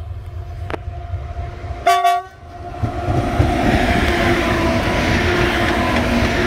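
Class 18E electric locomotives approaching and passing close by. A low rumble with a steady hum, a short horn toot about two seconds in, then a louder rushing rumble as the locomotives go past.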